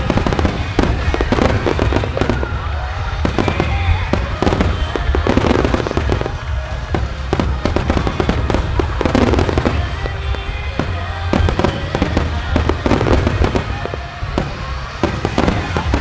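Fireworks display going off in a continuous rapid barrage: aerial shells and fan-shaped mines bursting one after another with crackling, over music played for the show.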